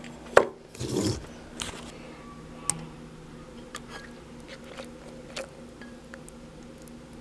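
Handling of a plastic blender jar while cooking oil is poured onto dried chilies: a sharp click about half a second in, a short rustle near one second, then scattered light ticks, over a faint steady hum.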